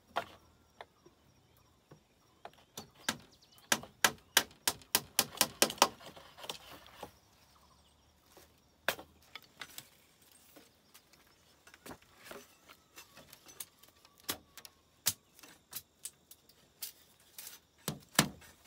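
Hammer driving nails into green bamboo: a quick run of sharp strikes, about three a second, then scattered single blows and taps.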